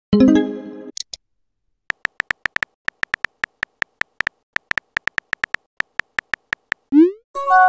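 Simulated phone-keyboard typing clicks from a texting-story app: a long run of short, even ticks, several a second, as a message is typed. There is a short chime right at the start. Near the end a rising swoop and a brief chime mark the message being sent.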